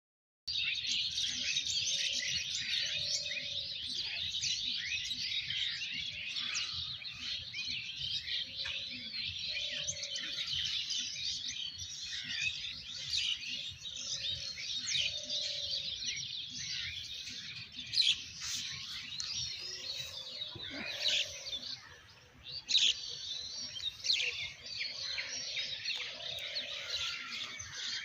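Many small birds chirping and chattering at once in a dense, continuous chorus. A lower, short call repeats every few seconds underneath.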